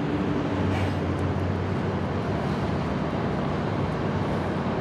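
Steady low mechanical drone of a running motor, with an even hiss over it.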